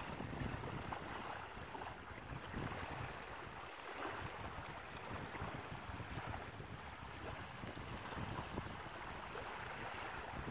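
Wind buffeting the microphone in uneven gusts, over the hiss of small waves lapping at the shoreline.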